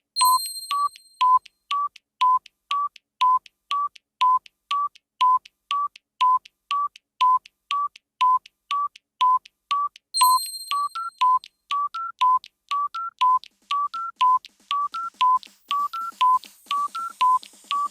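Electronic countdown-timer beeps, short and about two a second, alternating between two close pitches, each with a sharp click at the start. Twice, about ten seconds apart, a longer, higher tone sounds over the beeps. From about eleven seconds in, a third, slightly higher beep joins the pattern.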